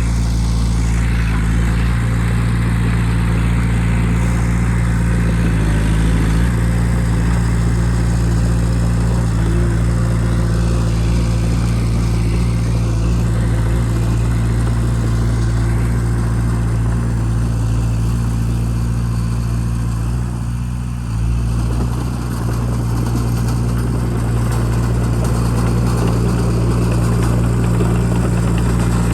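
Bulldozer's diesel engine running steadily under load as it pushes dirt, with a brief dip in level about two-thirds of the way through before it picks up again.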